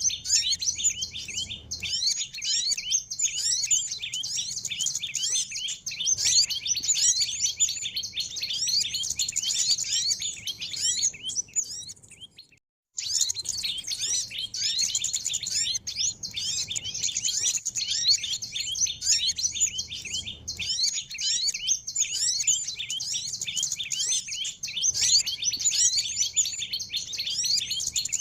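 Bird-lure recording of many small birds chirping and trilling at once, a dense, continuous high-pitched chorus. It cuts out for about half a second near the middle, then resumes.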